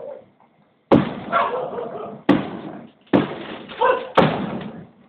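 Aerial firework shells exploding: four sharp bangs about a second apart, each trailing off over a second or so.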